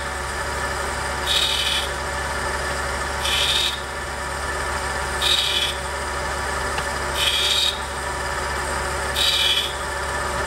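Surface grinder running, its wheel grinding the end of a Ford sidevalve valve stem with a short rasp on each pass, about every two seconds, over a steady motor hum. A little is being taken off the valve to open up a tappet clearance that is too tight.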